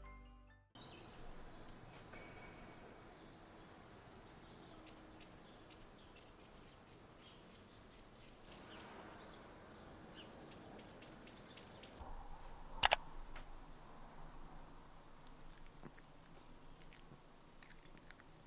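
Quiet ambience with small birds chirping in the distance, in short repeated high calls. One sharp click about two-thirds of the way through is the loudest sound.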